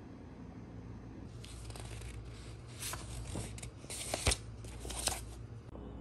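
Paper pages of a paperback booklet rustling as they are handled and turned, in a run of short, crisp crinkles starting about a second and a half in.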